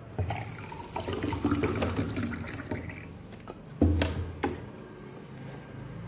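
Water poured from a plastic bottle into a glass tumbler, splashing and gurgling for about three seconds. About four seconds in comes a single loud thump.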